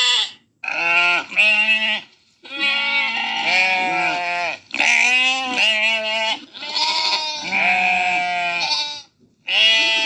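Sheep bleating over and over: about half a dozen bleats of one to two seconds each, quavering in pitch, with short breaks between them.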